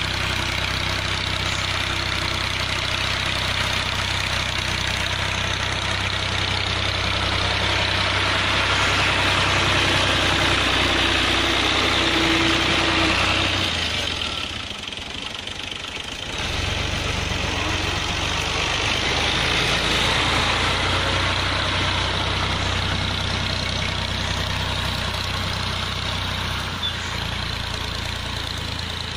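Tractor engine running steadily, with a broad mechanical noise over the engine hum. The sound drops away for about two seconds halfway through, then comes back at the same level.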